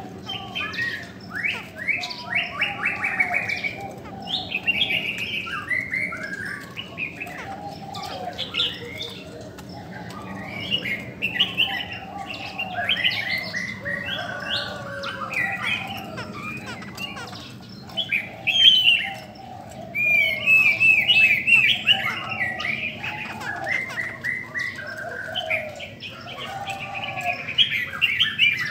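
Caged laughingthrushes singing: a dense run of varied whistled and chattering phrases, one after another, loudest a little past the middle, with a lower warbling line beneath.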